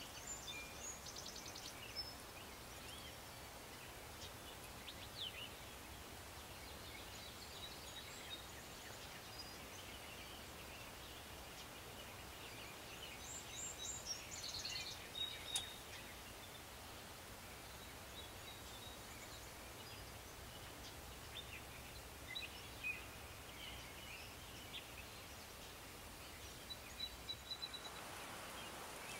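Faint outdoor ambience with scattered distant songbird chirps and short trills over a steady low background hiss. A brief cluster of louder, rapid trills comes about halfway through.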